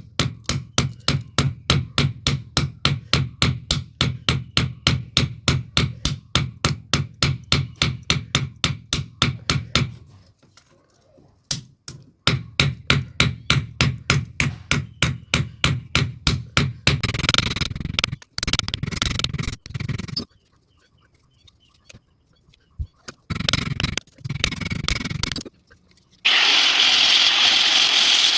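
Hammer striking steel in a fast, even rhythm, about five blows a second, while a knife is worked from leaf-spring steel. The hammering pauses briefly and resumes, then gives way to short bursts of grinding noise. Near the end a power tool starts and runs steadily.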